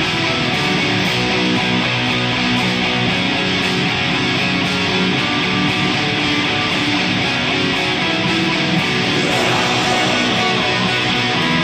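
Depressive black metal: loud, distorted electric guitars play sustained chords in a dense, steady wall of sound, with the riff shifting about nine seconds in.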